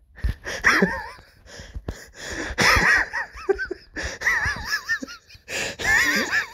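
A person in a helpless laughing fit: high, wavering, wheezing laughs in four or five bouts, broken by gasping breaths.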